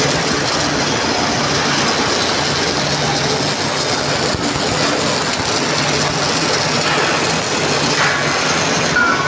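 Automated welding equipment running: a steady, even hiss with a low hum underneath.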